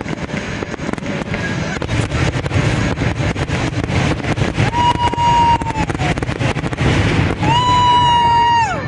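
Fireworks finale: a dense, rapid barrage of bursts and crackling. A horn sounds twice in the second half, each blast held for a second or more and sagging in pitch as it stops.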